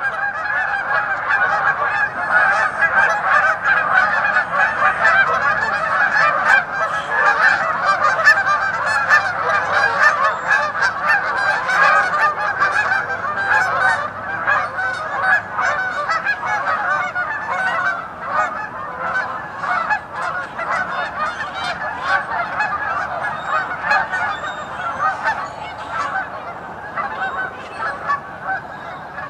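A large flock of geese honking all together, a dense and continuous din of overlapping calls that eases off slightly in the second half.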